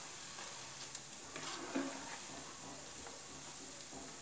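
Hot oil sizzling steadily as cabbage Manchurian balls deep-fry in a kadai, with a few faint clicks of a spatula against the pan.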